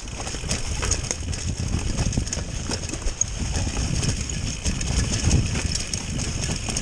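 Mountain bike running fast downhill over a rough dirt trail. The tyres and bike rumble steadily, with many quick knocks and rattles as it hits bumps in the ground.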